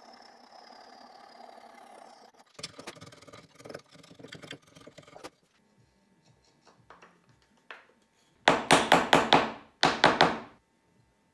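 A hammer tapping a wooden dovetail joint together on a workbench: a quick run of about six sharp blows, a short pause, then three more. Earlier there are lighter irregular knocks and clatter as the wooden parts are handled.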